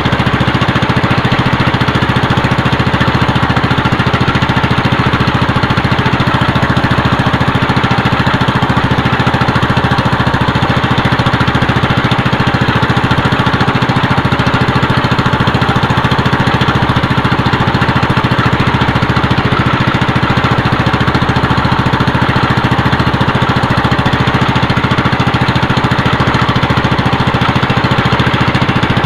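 Small engine of a motorized outrigger fishing boat running steadily, a loud, even drone that doesn't change.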